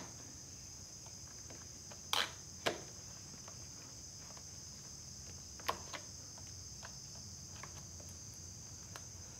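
Steady high-pitched insect chorus with a few light clicks, about two seconds in, shortly after, and again near six seconds, as a screwdriver works at a rubber motorcycle handlebar grip.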